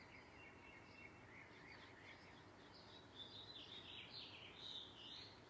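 Faint bird chirping over a low background hiss, the calls growing a little louder in the last couple of seconds.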